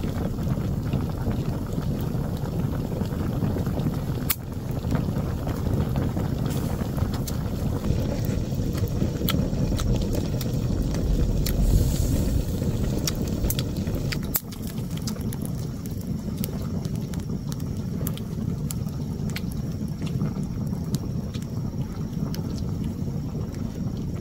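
Wind buffeting the microphone as a steady low rumble, with scattered sharp clicks throughout. The rumble drops somewhat about fourteen seconds in.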